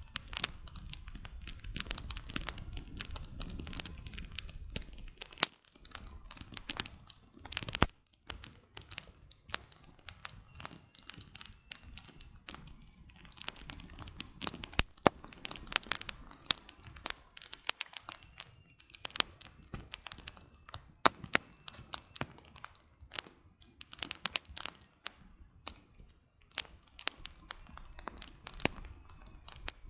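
Campfire of burning firewood crackling, with many irregular sharp pops and snaps over a soft low rumble of the flames.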